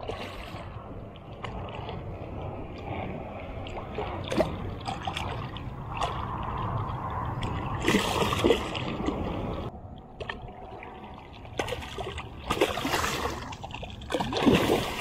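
Hooked tarpon thrashing at the surface: splashing and sloshing water, with several louder splashes in the second half.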